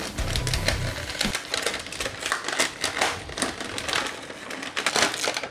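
Clear plastic blister tray crinkling and crackling as it is handled and pulled apart, a dense run of irregular clicks and snaps.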